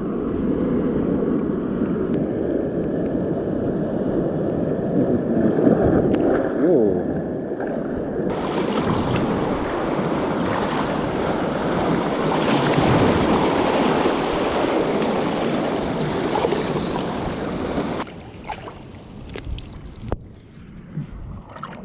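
Seawater surging and sloshing through a rocky tide pool around a wader's legs, with wind noise on the microphone. The sound drops away suddenly near the end, leaving smaller splashes and a few knocks.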